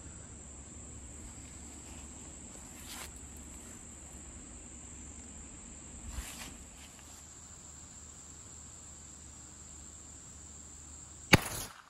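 Steady high-pitched insect drone, with a couple of faint knocks. Near the end a single sharp crack of a .22 rifle shot striking an aerosol clear-coat can, followed by a short burst of noise as the can blows open.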